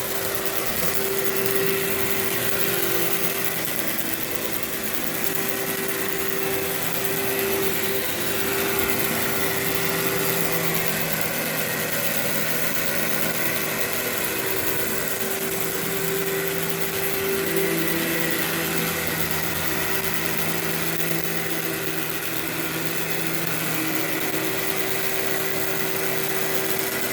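Workhorse vacuum cleaner running steadily on carpet: a constant motor hum with a rush of air.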